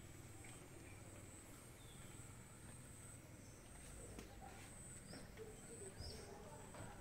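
Faint rural ambience, close to silence: a steady high-pitched insect drone with a few brief, faint bird chirps.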